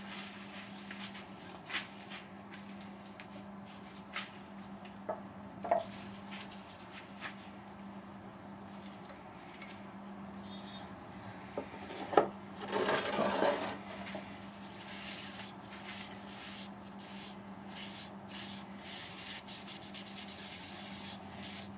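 A cloth rubbing wipe-on polyurethane finish onto a wooden bowl, short scratchy strokes coming quickly in the second half, after scattered light knocks and a brief rustle midway as the finish can and rag are handled. A steady low hum runs underneath.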